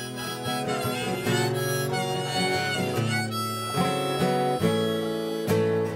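Harmonica played in a neck rack over a strummed acoustic guitar: an instrumental harmonica break in a folk song, with held, changing notes.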